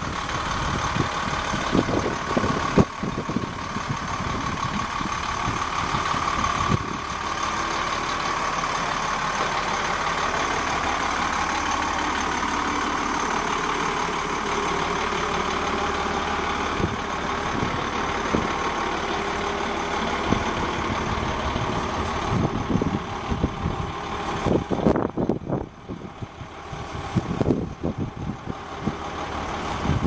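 1998 Blue Bird TC2000 rear-engine school bus's diesel engine idling steadily, with irregular low thumps over it.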